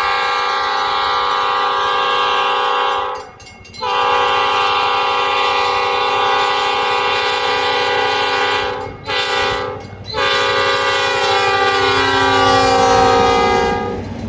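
EMD GP38 locomotive's air horn sounding a chord in the grade-crossing pattern: a long blast ending about 3 seconds in, another long blast, a short one, then a final long blast whose pitch slides down as the locomotive passes. The rumble of the passing train builds under the last blast.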